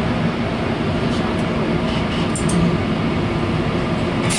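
Steady rumble and rolling noise of a moving passenger train heard from inside the coach, with a few brief high ticks from the running gear.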